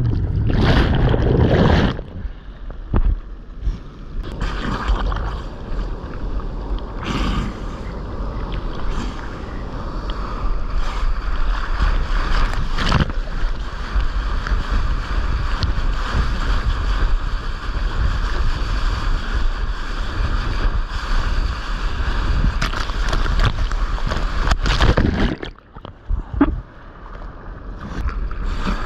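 Ocean surf and churning white water heard from a head-mounted GoPro at water level: a loud rush of water for the first couple of seconds as it comes through a wave, then steady washing and splashing with wind on the microphone. A short quieter spell near the end before the water noise builds again.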